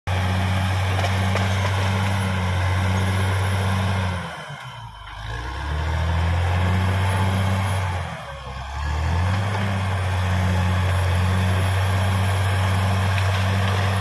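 Caterpillar D6R XL bulldozer's diesel engine running at high revs. Twice, about four and eight seconds in, the revs drop for a second or so and then climb back up.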